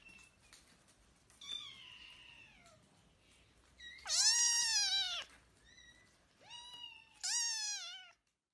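Young kitten meowing four times in high, arching calls. The second and fourth meows are loud; the first and third are fainter.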